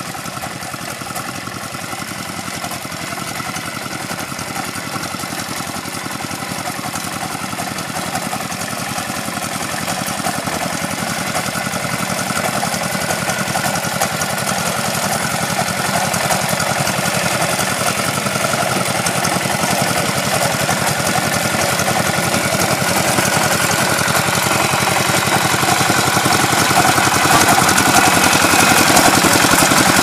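Small diesel engine of a walk-behind double-drum vibratory road roller running steadily as the roller compacts a crushed-stone path, growing louder as it comes closer.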